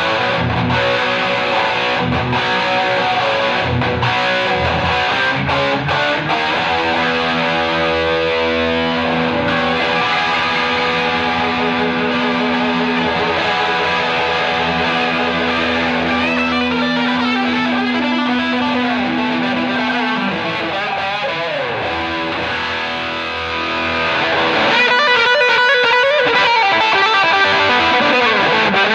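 Gibson SG electric guitar played through a Ryra Klon overdrive into a 1969 Marshall JMP 50 and a 12-inch Greenback speaker, giving a crunchy overdriven tone. Strummed chords at first, then long held notes that ring for several seconds; about three-quarters of the way in the playing gets louder and busier.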